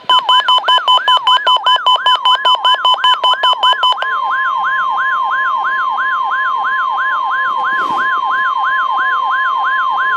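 NOAA Weather Radio warning alarm: the steady 1050 Hz tone, held throughout. Over it runs a second alarm, a rising siren whoop repeating about three times a second. In the first four seconds a fast pulsing beep is added and then drops out.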